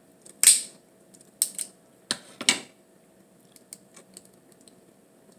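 Close-up eating sounds: five loud, sharp crunches or cracks in the first three seconds, then only faint clicks and smacks.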